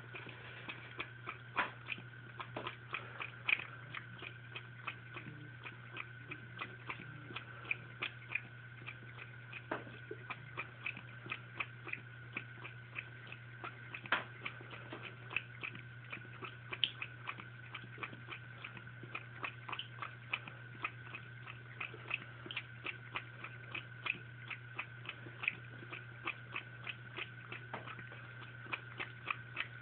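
Cat lapping water from a running faucet: a steady, even rhythm of small wet clicks, about three or four a second.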